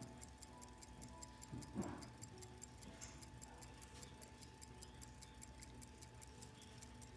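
Model 1883 Waltham size-18 pocket watch ticking steadily and faintly at about five ticks a second; the movement is running after its service. A soft handling rustle comes about two seconds in.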